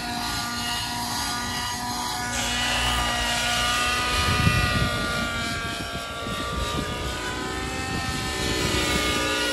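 Gaui NX7 radio-controlled helicopter flying aerobatics: the engine and rotors whine steadily, the pitch wavering up and down as it manoeuvres. A louder low rush comes about four and a half seconds in.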